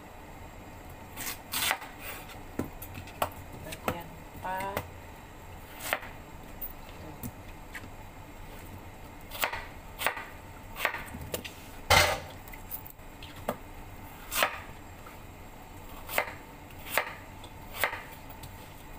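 Kitchen knife chopping through white radish (daikon) and knocking on a wooden cutting board. The chops come singly at an uneven pace, with a pause of a few seconds midway.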